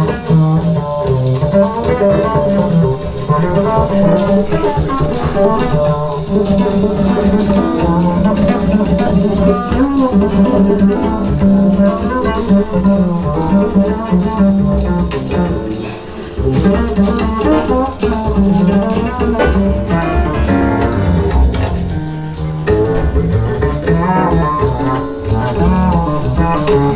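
Recorded music with double bass and guitar, played over a hi-fi system's floor-standing loudspeakers.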